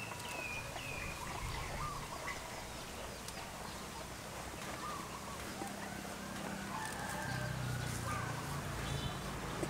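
A low steady hum under scattered short, high-pitched animal chirps, with a cluster of falling chirps in the first couple of seconds.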